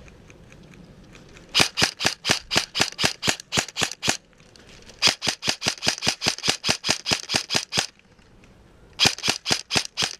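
Airsoft rifle firing three long strings of sharp, evenly spaced shots, about seven a second, with short pauses between the strings.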